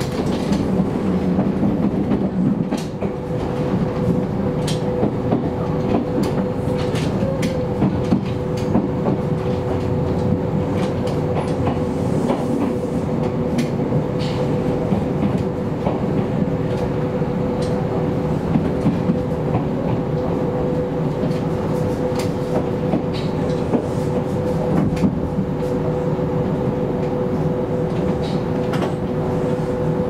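Kintetsu electric commuter train running at steady speed, heard from inside the passenger car: a continuous rumble with two steady humming tones and scattered clicks from the wheels passing over rail joints.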